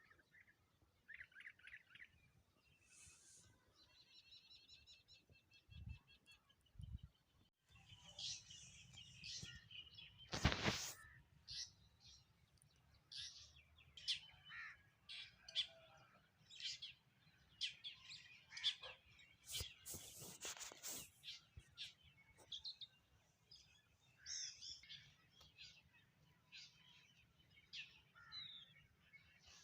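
Several small birds chirping and calling with many short, high notes, including a quick run of evenly repeated notes a few seconds in. One louder, sharper sound comes about ten seconds in.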